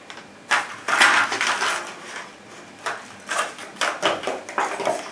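Hard plastic clicking and rattling as pieces of a gun cleaning kit are handled in a plastic clamshell tray and a clear plastic tube, in irregular bursts.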